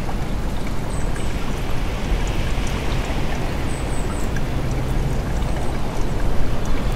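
Steady rush of flowing water, like a stream.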